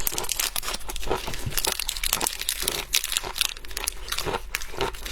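Dense, irregular crackling and crinkling from handling and breaking into shellfish while eating.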